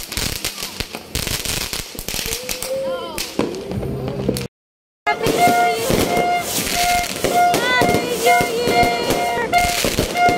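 Consumer fireworks crackling and popping: aerial shells bursting, then a ground fountain firework hissing and crackling. The sound drops out for about half a second near the middle. After that, a pitched note repeats about twice a second behind the crackle.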